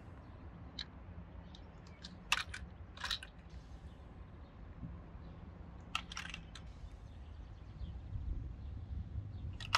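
Items crackling and cracking as they are crushed under a car's wheel: a few short sharp cracks scattered through, the clearest about two and a half, three and six seconds in, over a low steady rumble.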